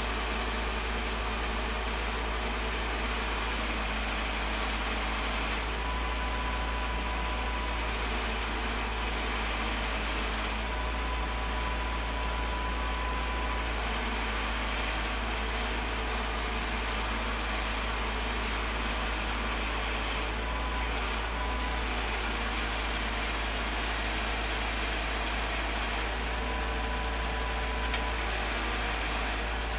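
An engine idling steadily, with a faint high steady tone that comes and goes several times.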